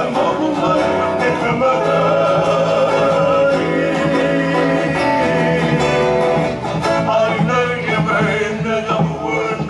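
Modern Hawaiian hula song: a voice singing over guitar and ukulele accompaniment.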